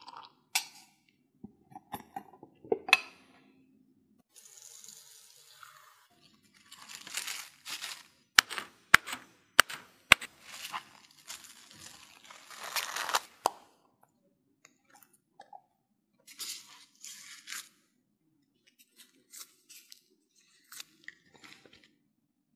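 Kitchen prep sounds: plastic cling film crinkling as it is pulled and stretched over a bowl, with several sharp clicks, set among scattered soft taps of utensils and dishes.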